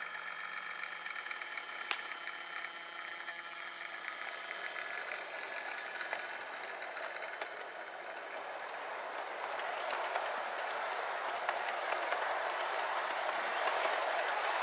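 HO-scale model Intercity train running on its track, with a rolling rattle of wheels on rail that grows louder over the second half. A thin steady motor whine fades out after the first few seconds.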